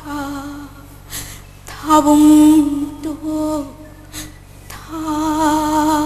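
A woman singing a Manipuri folk song unaccompanied, in slow, long-held notes with vibrato: three drawn-out phrases with short pauses between them.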